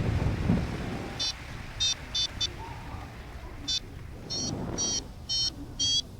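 Paragliding variometer beeping in short bursts that come faster and higher in pitch from about four seconds in, signalling the glider climbing in lift. Wind rushes over the microphone underneath.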